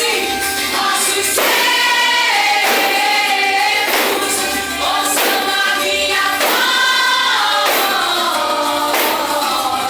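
Gospel vocal group singing together, several voices held in long sung notes, with instrumental accompaniment and a steady beat.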